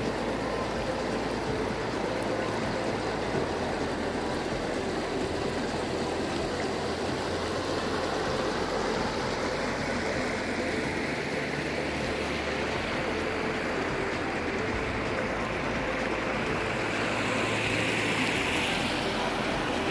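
Shallow rocky mountain stream rushing steadily over stones in riffles. It gets a little brighter and louder near the end.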